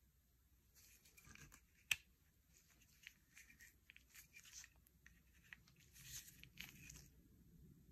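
Gloved hands handling a Slice folding utility knife with a plastic handle and ceramic blade: faint rubbing and scratching of glove on the handle. One sharp click comes about two seconds in, and a few lighter clicks follow.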